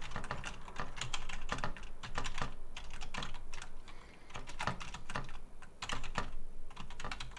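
Typing on a computer keyboard: quick, uneven keystrokes, with a short pause about four seconds in.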